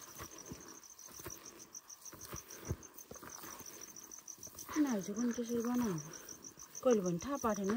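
A cricket chirping in a fast, even, high-pitched pulse that keeps on steadily, with a person's voice heard briefly twice in the second half, louder than the chirping.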